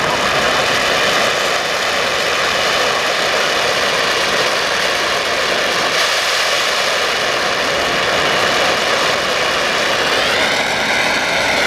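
Oxy-acetylene flame of a Lincoln Port-a-Torch hissing steadily. Near the end a whistling tone rises and then falls in pitch as the flame is adjusted toward neutral.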